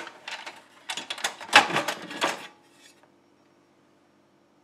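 Removable grill plate of a George Foreman GRD6090B grill unlatched from its release clip and lifted out: a short clatter of clicks and knocks, loudest about one and a half seconds in, dying away after about two and a half seconds.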